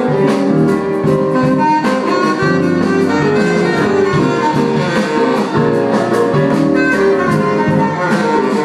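Live jazz band playing: a saxophone carrying the line at the front, with a drum kit and guitar behind it.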